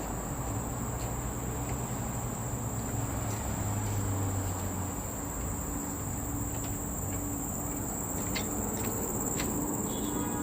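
Insects, such as crickets or cicadas, droning steadily on one continuous high-pitched note, with a low rumble underneath.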